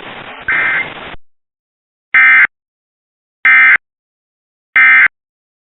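Emergency Alert System end-of-message code: three short bursts of SAME digital data tones, each about a third of a second long and a little over a second apart, after about a second of radio hiss.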